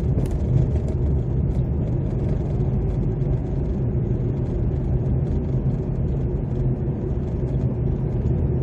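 Car driving at a steady speed, heard inside the cabin: a steady low rumble of engine and road noise with no change in pitch.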